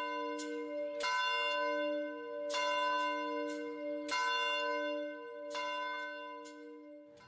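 A single church bell swinging in its tower, the clapper striking about a dozen times at uneven intervals, often in pairs, each stroke humming on into the next. The strokes fade near the end.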